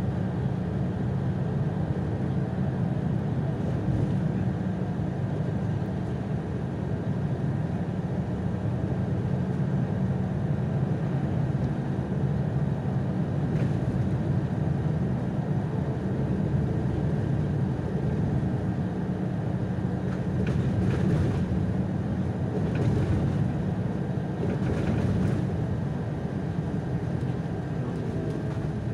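Solaris Urbino 18 III articulated city bus driving, heard from inside the passenger cabin: a steady engine drone mixed with road and tyre noise, with faint rattles between about 20 and 25 seconds in.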